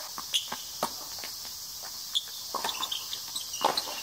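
Tennis doubles rally: a string of sharp pops from rackets hitting the ball and the ball bouncing on the hard court, over a steady high hiss.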